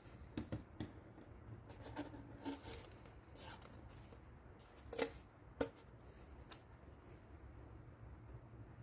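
Light clicks and rubbing of wooden ukulele kit parts being handled as the neck is test-fitted to the body, with three sharper wooden clicks about five, five and a half and six and a half seconds in.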